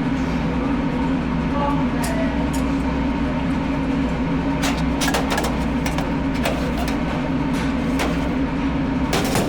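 A steady low machine drone throughout, with scattered clicks and knocks of hand tools and metal hose clamps as the pump assembly is put back together.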